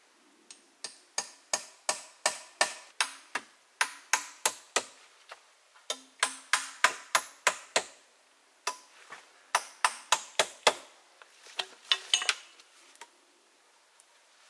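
Hammer blows, sharp and evenly spaced at about three a second, in four runs with short pauses between them.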